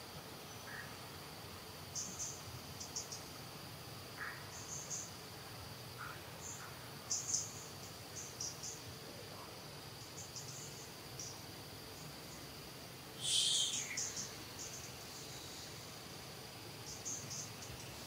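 Insects in forest undergrowth: a steady high-pitched drone, with short clusters of high chirps every second or two. A louder hiss breaks in about thirteen seconds in.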